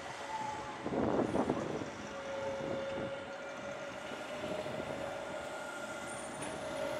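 Tram running on its rails: a louder rumbling clatter about a second in, then a steady high whine that rises slightly in pitch.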